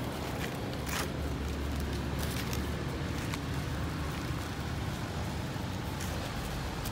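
Steady low rumble of outdoor background noise, with a few faint, light ticks scattered through it.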